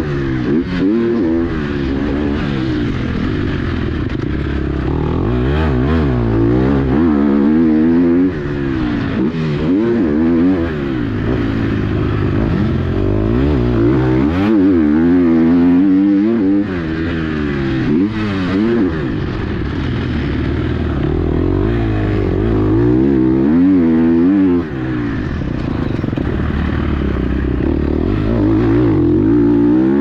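KTM SX-F four-stroke single-cylinder motocross engine, heard up close on board, revving hard and backing off again and again, its pitch rising and falling every couple of seconds.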